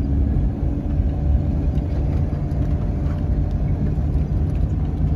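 Jeep with a front snowplow blade driving on a snow-covered road, its engine and tyre noise heard from inside the cab as a steady low rumble.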